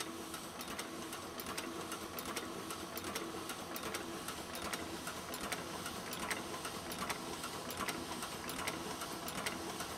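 Offset printing press running: a steady mechanical whir with scattered light clicks.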